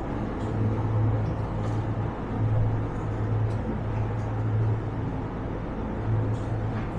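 Supermarket ambience: a steady low hum with a rushing background noise, the low hum swelling and fading a few times.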